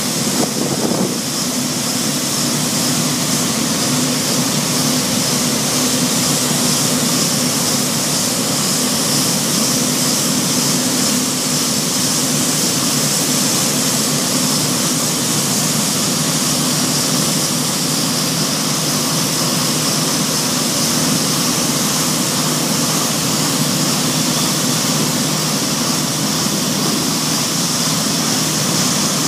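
Diesel engines of heavy quarry machinery, a wheeled forklift loader and an excavator, running steadily: an even engine hum with a strong hiss over it, unchanged throughout.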